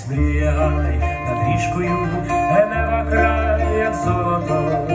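Live band music: an amplified acoustic guitar playing a song over deep sustained bass notes, with a voice singing.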